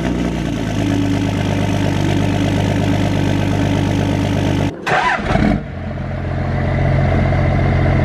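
2005 Dodge 2500's 5.9-litre Cummins straight-six diesel idling steadily just after a cold start in freezing weather. A little under five seconds in the sound breaks off, and then a second diesel pickup engine idles steadily with a different, higher-pitched tone in its note.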